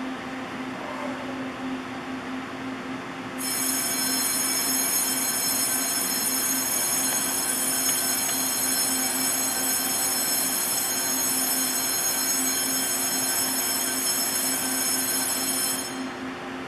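Shunting freight train: a loud, steady, high-pitched squeal starts suddenly a few seconds in and cuts off just as suddenly near the end, over a low steady hum.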